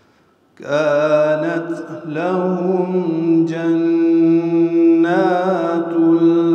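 A man reciting the Quran in a slow melodic chant, holding long drawn-out notes with gentle rises and falls in pitch. The voice comes in about half a second in, after a brief hush.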